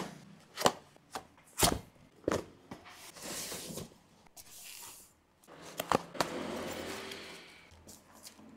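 Packaging handled during an unboxing: cardboard box flaps and styrofoam packing knocked and shifted, with several sharp taps in the first few seconds and one more about six seconds in. Plastic wrapping rustles in between, the longest stretch near the end as a cable in a plastic bag is handled.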